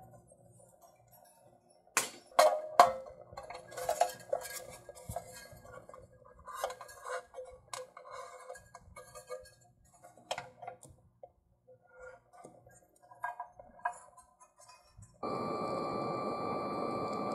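Metal clinks and knocks as a BioLite CampStove's body and power module are handled. About fifteen seconds in, the stove's fan switches on and runs as a steady airy hum with a high whine.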